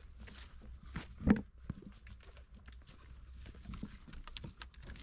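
Footsteps on a wooden plank boardwalk, making hollow knocks, with one loud thump about a second in.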